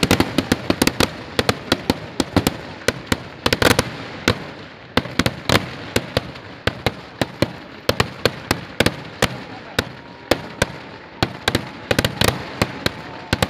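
Eedu vedi fireworks: a continuous, irregular string of loud firework bangs, a few per second, with dense rapid volleys at the start and about three and a half seconds in.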